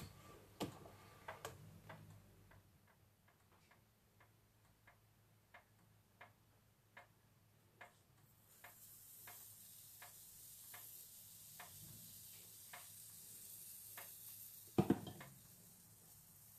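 Faint, even ticking, about three ticks every two seconds. A faint hiss comes in about halfway, and a brief louder clatter comes near the end.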